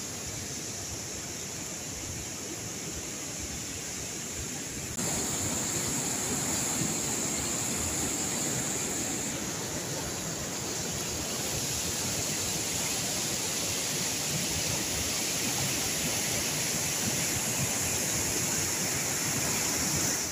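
River rapids rushing over rock boulders: a steady rush of white water, stepping up louder about five seconds in.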